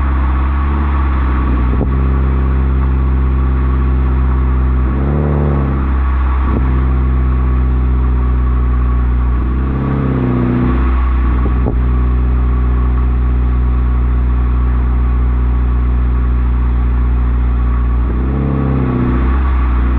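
2013 Toyota Corolla engine and exhaust idling with a steady low drone, blipped three times, about five, ten and eighteen seconds in. A sharp pop follows a couple of the blips.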